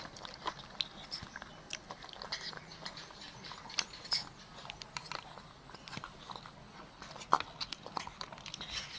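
Baby monkey slurping and lapping milk from a dish with its mouth: a run of small irregular clicks and smacks.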